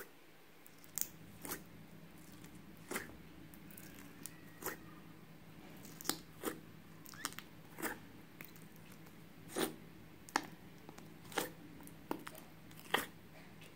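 Slime being squeezed, stretched and mixed by hand, giving irregular sticky pops and clicks, about one or two a second.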